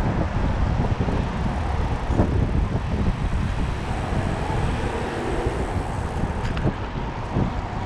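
Steady rushing wind and road noise from a moving bicycle on a city street, with traffic in the background.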